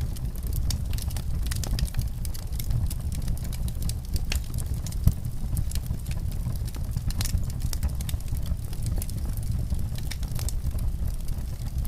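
Wood fire in a fireplace crackling, with frequent small sharp pops over a low steady rumble, and one louder pop about five seconds in.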